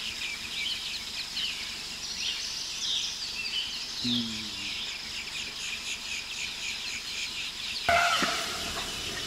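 Many small birds chirping over a steady high hiss, with a brief low sound about four seconds in. Near the end a sudden louder sound cuts in.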